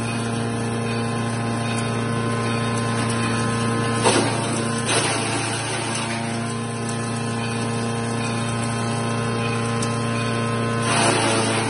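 Bhide & Sons CS50 chipper shredder running steadily on its electric motor, with a louder rush of crunching and shredding as branches are fed in about four seconds in, again a second later, and near the end.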